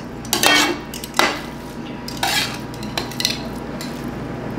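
Metal slotted spoon scraping and knocking against a large metal kadai while stirring thick, part-cooked biryani rice. There are about five short strokes, spaced irregularly.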